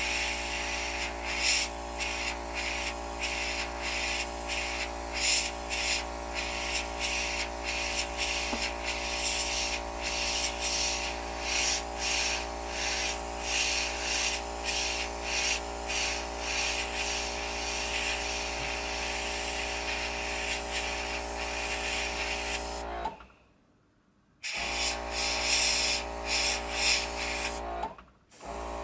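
Airbrush compressor running with a steady electric hum, while air and paint hiss from a dual-action airbrush, breaking off and resuming many times as the trigger is worked. The sound cuts off abruptly near the end, starts again a second and a half later, and stops once more just before the end.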